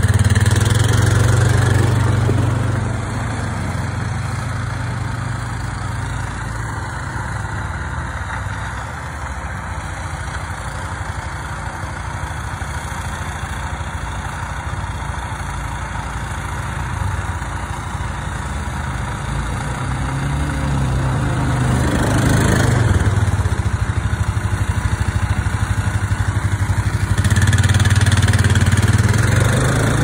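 Small engines running steadily: a two-stage snowblower throwing snow, and a four-wheeler's engine idling close by. It is louder near the start and in the last few seconds, with a brief surge about two-thirds of the way through.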